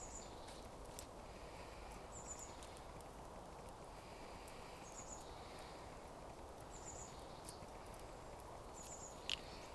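Quiet outdoor background with a small bird giving a short, high, three-note chirp about every two seconds. A few light clicks, the sharpest near the end.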